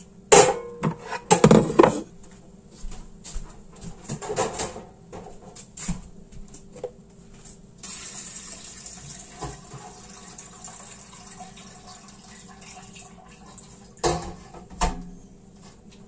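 Knocks and clatter of plastic cheese moulds being handled, with liquid trickling and splashing between them: whey running off as brynza curd is put into a mould to drain.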